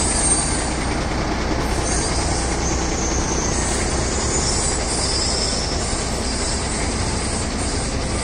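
A 16-wheeler truck's diesel engine running, a steady low rumble with a high hiss over it.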